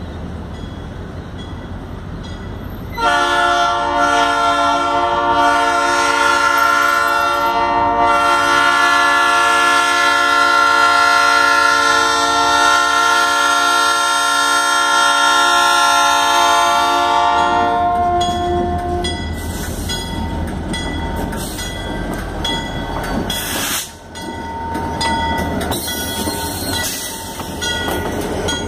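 Diesel locomotive horn sounding one long chord, starting about three seconds in and held for roughly fourteen seconds as the train approaches a road crossing. After it stops, the locomotive's engine rumble and the passenger cars' wheels on the rails are heard as the train passes close by.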